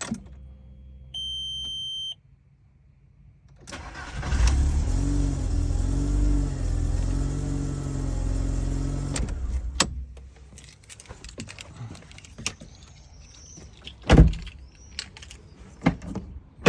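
A short electronic beep about a second in, then the VW Golf 4's engine starts on the newly cut key, runs for about six seconds and stops. A sharp knock follows a few seconds later.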